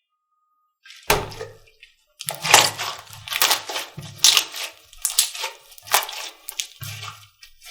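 Slime being pressed and worked by hand: a quick series of crackling, crunchy squishes, about two a second, a few with a dull thump.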